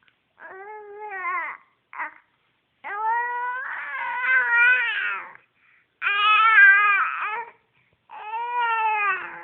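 A baby squeaking: a run of high, drawn-out, cat-like squeals, four long ones with a short chirp between the first two.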